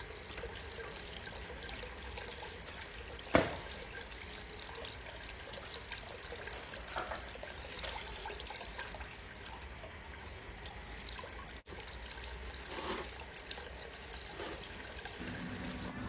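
Water trickling steadily down a stainless-steel spiral noodle slide, with one sharp click a little over three seconds in.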